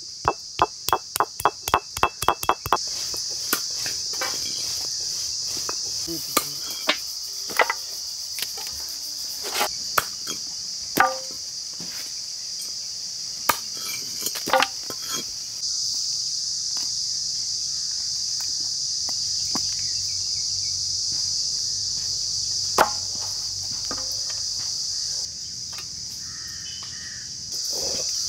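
Insects chirring in a steady high band, over a quick run of about a dozen sharp knocks in the first three seconds. After that come irregular single chops of a cleaver into a wooden chopping block.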